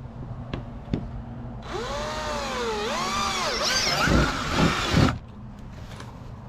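Power drill running in a trigger-controlled burst while working on a pad eye mount on a plastic kayak hull, its motor pitch dipping and rising as the speed changes. There are a few heavy knocks near the end before the drill stops abruptly about five seconds in, after two small clicks at the start.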